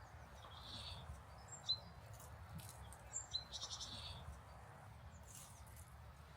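Faint, scattered bird chirps, a few short sharp high notes, over a steady low outdoor background noise, with light rustling.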